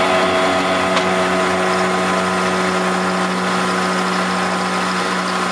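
Milling machine running steadily as an end mill cuts a slot into steel angle.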